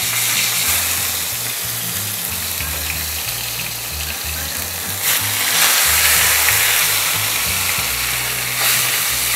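Marinated pork shoulder searing in hot oil in a frying pan, a steady sizzle that grows louder about five seconds in and again near the end as another piece is laid in with tongs.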